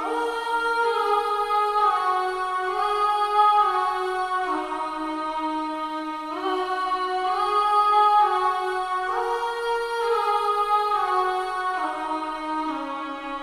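A sampled vocal 'aah' pad playing slow sustained chords with no beat, the chord changing every second or two and each note sliding smoothly into the next.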